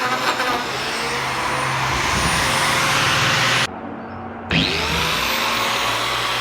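Electric power tool working wood, its motor running steadily with a loud grinding noise. Just past halfway the sound cuts out abruptly for under a second, then the motor spins back up with a rising whine and runs on.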